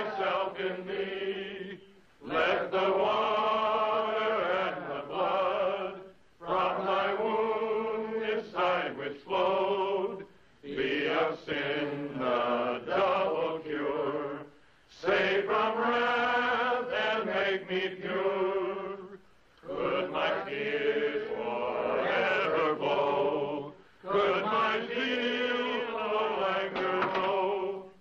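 Voices chanting at a steady pitch in a worship chant, in phrases of about four seconds with a brief pause between each.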